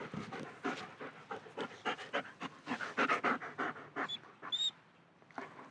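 A dog panting rapidly, quick noisy breaths several times a second, with two brief high whines about four seconds in.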